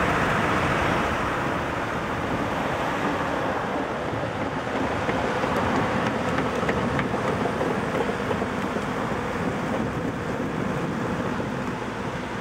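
Road traffic passing a construction site: continuous tyre and engine noise. The loudest vehicle passes at the start and fades over the first couple of seconds.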